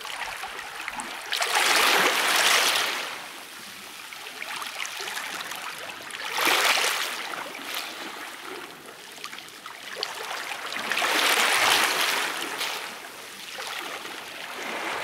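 Small sea waves washing over a rocky shore, surging three times about four to five seconds apart and falling back to a low wash between them.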